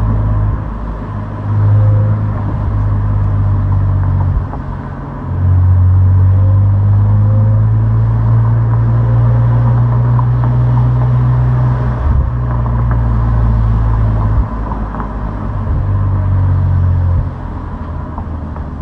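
Opel Insignia OPC's turbocharged V6 with stock exhaust, running under load as a low, steady drone. It eases off briefly a few times, about four and a half seconds in, near the middle and again near the end.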